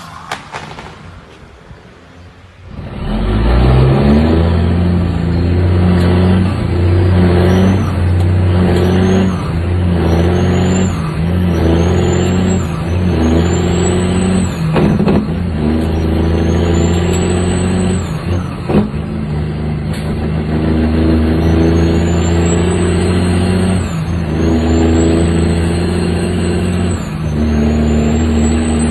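About three seconds in, a heavy truck's diesel engine comes in loud under load and pulls up through a string of gears. The revs climb in each gear and drop back at each upshift, with a high whistle rising and falling along with them.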